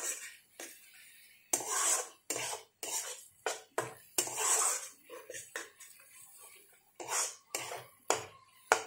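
A metal spatula scraping and knocking against a metal kadai while spice paste and tomatoes are stir-fried in oil (kashano, frying the masala). The strokes come irregularly: several drawn-out scrapes and a few short, sharp knocks.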